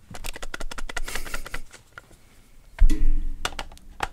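Handling sounds of an older Canon zoom lens being fitted to a Canon EOS 800D body close to the microphone. A quick run of small plastic ticks and clicks comes first, then a louder knock about three seconds in and a few more clicks.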